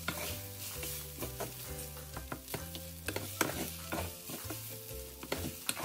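Wooden spatula stirring and scraping rice around a stainless steel pan, with repeated short scrapes and knocks against the pan over a light sizzle of the rice frying in oil.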